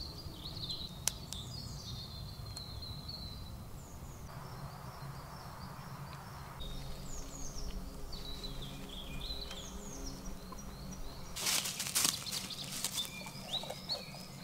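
Woodland birds chirping and singing over a steady low background noise, with a short burst of rustling and crackling near the end.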